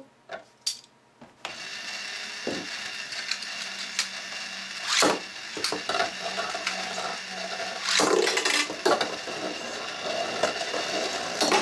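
Motorized Beyblade X Tornado stadium whirring steadily as its floor turns, with the metal Beyblade tops spinning and clacking against each other and the plastic dish. A few small clicks come first, then the whir starts after about a second, with sharp clacks, the loudest about five and eight seconds in.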